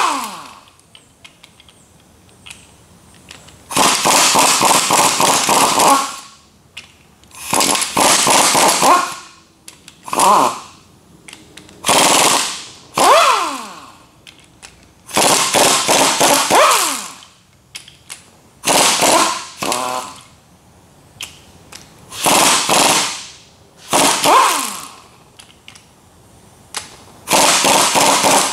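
Air impact wrench hammering loose the ring gear bolts on a differential carrier. It comes in about nine short bursts of one to two seconds, with pauses between, and several bursts trail off in a falling whine as the air motor spins down.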